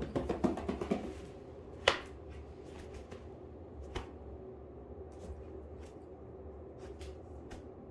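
Puppy's claws clicking and tapping on a vinyl floor as it moves about: a quick run of taps in the first second, then scattered single clicks, the sharpest about two and four seconds in, over a faint steady hum.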